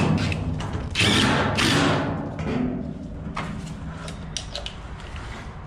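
DeWalt 20V cordless impact driver running a 5/16 hardened bolt into the steel wall of a shipping container, loudest for about the first two seconds and fading by about halfway. A quieter stretch follows.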